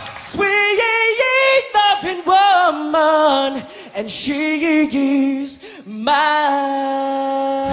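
A cappella vocal band singing: a lead voice with backing voices in short, bending phrases, with the vocal bass and beatboxing dropped out. About six seconds in, the voices settle into a held chord.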